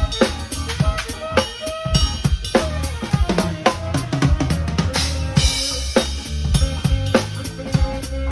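Drum kit played in a busy groove: bass drum, snare and rimshot strokes several times a second, with a cymbal crash about five seconds in.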